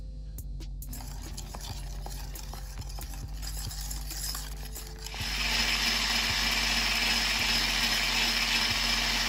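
Electric mixer beating egg yolk into a creamed cookie batter. Its motor starts about a second in and runs louder with a steady high whine from about five seconds in, likely a higher speed.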